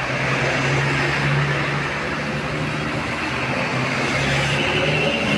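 A bus's engine running, a steady low drone with traffic noise; the telolet horn sounded just before has stopped.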